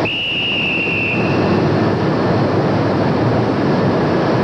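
Steel mill furnace noise: a loud, steady industrial rush, with a high whine over it for about the first second and a half.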